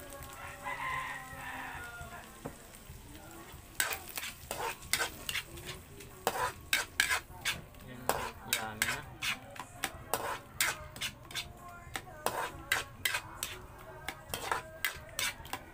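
Stainless-steel spatula scraping and clinking against a wok as pasta in cream sauce is stirred, the clinks coming quick and irregular from about four seconds in.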